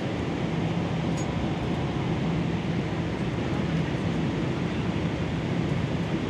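Steady airliner cabin noise in flight: an even rush of air and jet engines with a low hum underneath.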